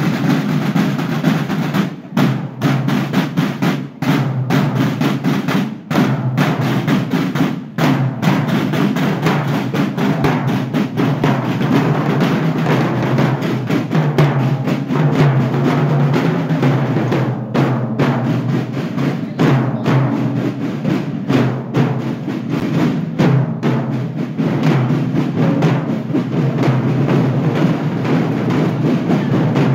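A marching band's snare drums beaten in a steady marching cadence by many players together, with short breaks about every two seconds at first.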